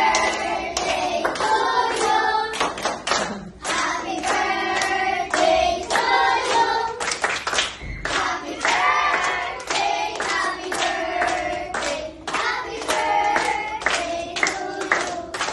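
A group of young children singing a birthday song together, clapping their hands along with it.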